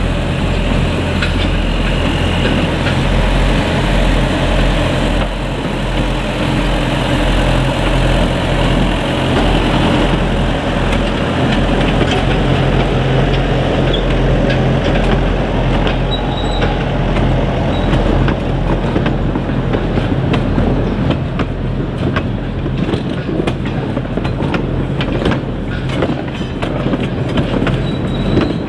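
A narrow-gauge field-railway diesel locomotive running past with a steady low engine note, then a long train of loaded peat wagons rolling by, wheels clattering on the track in a string of clicks that grows denser in the second half.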